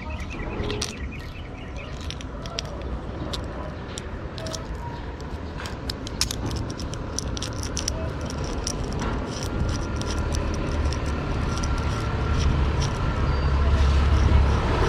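Light clicks and rattles of a steel clutch cable and its easy-pull bracket being handled, then a vehicle engine's low rumble growing louder over the last few seconds.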